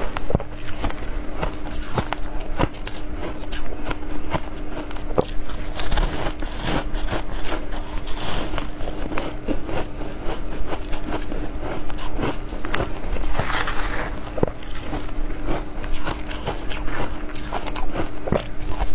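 Close-up crunching and chewing of matcha-powdered ice, a dense run of crackly bites and crunches, over a steady low hum.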